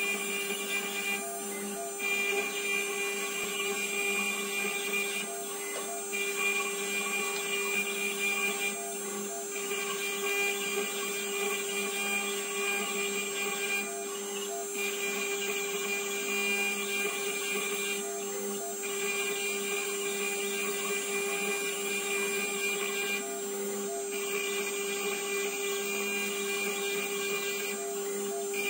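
Chencan CNC router spindle milling an aluminium plate with an end mill: a steady high whine with gritty cutting noise. The cutting noise breaks off briefly every four to five seconds, then resumes.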